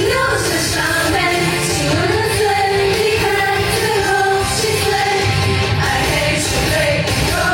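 Pop song: a woman singing a held, gliding melody over steady instrumental accompaniment.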